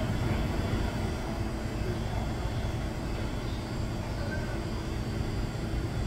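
Steady low rumble of indoor background noise, with no alarm tone or rhythm in it: the fire alarm is not sounding.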